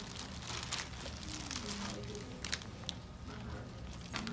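Clear plastic zipper bag crinkling and rustling as laminated cards are handled and pulled out of it, with a few sharp clicks; faint voices talk in the background.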